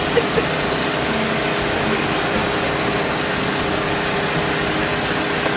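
Boat outboard motor idling steadily, with a couple of light knocks just after the start.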